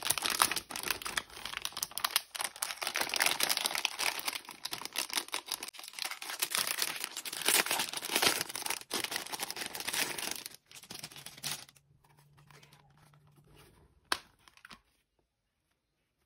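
Clear plastic packaging bag rustling and crinkling as it is handled and opened to take out a glitter PVC binder, dense and crackly for about the first ten seconds, then dying away; one sharp click about fourteen seconds in.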